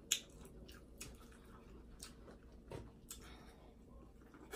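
Faint eating sounds: chewing on corn on the cob and fingers peeling seafood shells, heard as scattered sharp clicks and wet squishes, the loudest click right at the start.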